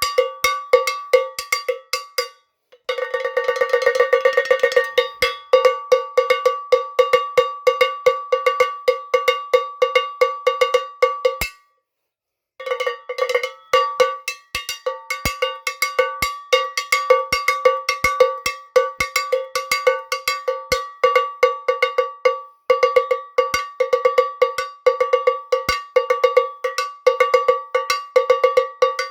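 A cowbell beaten fast and steadily with a stick, every strike ringing at the same pitch. It pauses briefly twice, once about two and a half seconds in and for about a second near twelve seconds in.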